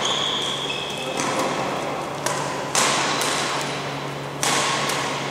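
Badminton rackets striking a shuttlecock in a rally: about four sharp hits, the last two loudest, echoing in a large sports hall, with short high squeaks from shoes on the court floor.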